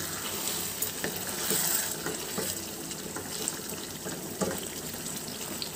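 Chicken masala bubbling and sizzling in a frying pan, a steady watery hiss, with a few light scrapes of a spatula stirring through it.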